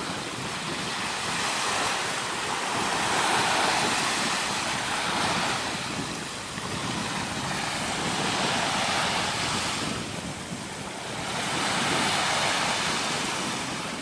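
Ocean surf: waves washing in and drawing back, swelling and fading four times.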